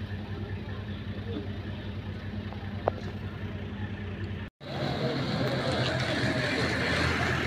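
Steady vehicle engine hum heard from inside the back of a police truck, with one sharp click. After a brief dropout about halfway, a louder, noisier outdoor mix with a vehicle engine running.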